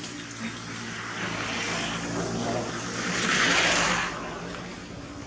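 Engine noise passing by: a steady engine hum that swells, loudest about three and a half seconds in, then drops off quickly.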